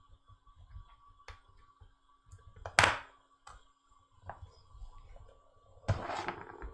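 Objects being handled on a repair workbench: scattered light knocks, one sharp knock just before 3 s, and a short clatter near the end, over a faint steady electrical hum.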